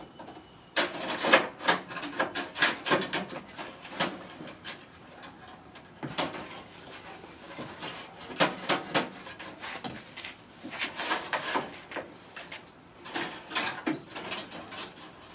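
Irregular scraping, rubbing and clicking in clusters as a wire or cord is fed and pulled through a hole behind the truck cab's panels, where something inside is making it hard to pull through.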